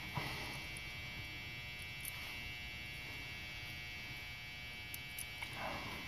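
A few faint small clicks as brass top pins are fitted one by one into an ASSA Twin 6000 lock cylinder, over a steady electrical hum.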